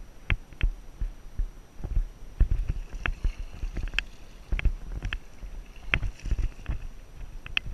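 Kayak paddling: paddle strokes splashing into the water, with irregular sharp clicks and knocks and low thumps from the boat.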